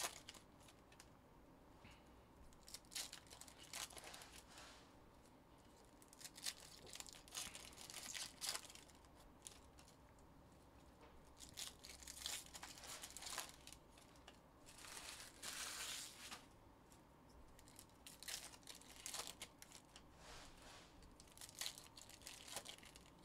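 Trading card pack wrappers being torn open and crinkled, in short scattered bursts of tearing and rustling, the longest about 15 seconds in.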